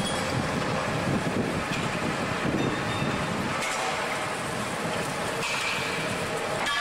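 Pickup truck engine running as the truck moves slowly past, a steady rumble with no breaks.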